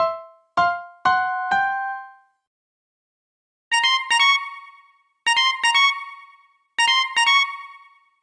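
Siemens S75 mobile phone ringtone. Four rising notes open it, then after a pause of about a second and a half a short three-note figure repeats about every second and a half.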